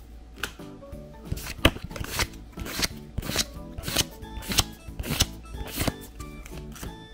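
Pokémon trading cards being flicked through one after another, a short papery snap about every half second or so, over background music.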